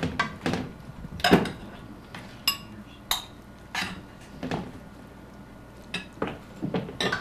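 Serving utensils clinking and scraping against a saucepan, a frying pan and ceramic plates and bowls as stir-fry and rice are dished up. A string of separate clinks and knocks, the loudest about a second in, with a couple ringing briefly.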